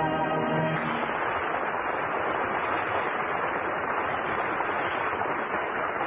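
A held sung note with orchestra cuts off under a second in, and a studio audience breaks into steady applause.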